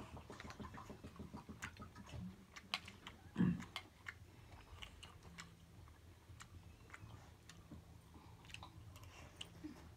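Metal spoons clinking and scraping lightly in stainless steel bowls, many small irregular ticks, with chewing. One louder short sound about three and a half seconds in.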